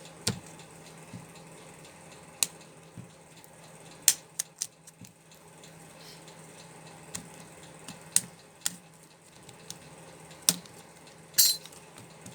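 Scattered sharp clicks and clinks of small repair tools and plastic phone housing parts being handled on a work surface, about eight separate taps with a short rattle near the end. A faint steady hum lies underneath.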